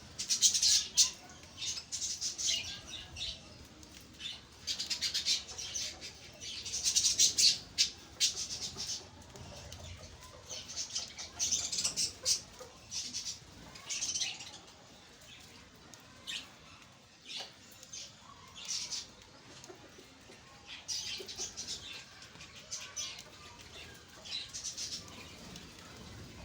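Pet budgerigars flapping their wings and chirping on the wire mesh of their cage, in repeated short bursts of high-pitched fluttering and chatter.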